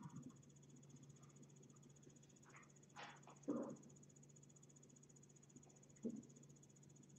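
Near silence: a steady low hum and a faint, steady high-pitched trill, with a few soft knocks and rustles about three seconds in and once more near the end as a cat jumps down from an office chair.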